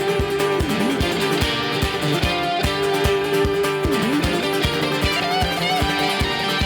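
Live band playing an instrumental passage: guitar over a steady drum beat, with some notes bending down and back up.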